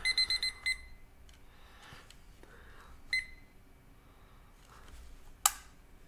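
Countdown timer alarm beeping: a quick run of high electronic beeps at the start, then one more short beep about three seconds in, signalling that the countdown has run out. A single sharp click comes near the end.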